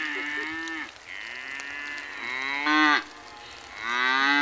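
Young Holstein dairy calf bawling in long, fairly high-pitched calls: one ends about a second in, a second swells into a louder, higher cry near three seconds, and a third begins near the end.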